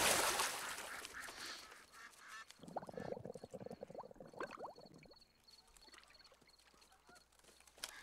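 The echo of a gunshot dies away over the water. About three seconds in, a flock of waterfowl breaks into honking for about two seconds.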